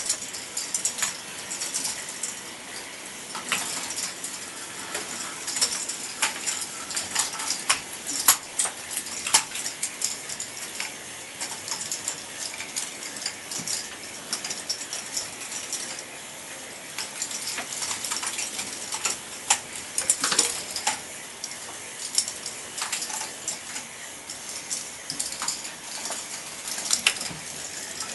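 A large K'nex ball machine running: plastic balls rolling and knocking along K'nex tracks, over the clicking and ratcheting of its motor-driven ball lifts. Many sharp clicks and knocks come at uneven intervals.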